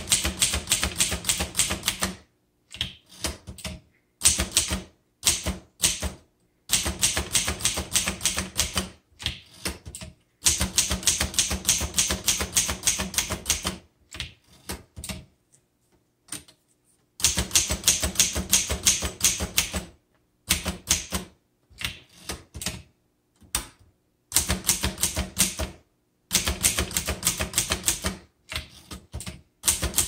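1956 Underwood Golden Touch manual portable typewriter being typed on: fast runs of clacking key strikes in bursts of a few seconds, with short pauses between them.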